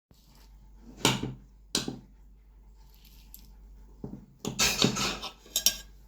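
Kitchenware being handled: two sharp knocks, then a burst of clattering near the end.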